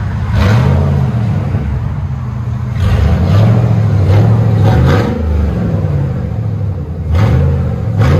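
A 2005 Cadillac Escalade's 6.0-litre V8 revving through a straight-piped true dual exhaust, mufflers and tailpipes cut off and the pipes dumped before the rear axle. The engine runs loud, with several rev blips whose pitch rises and falls back.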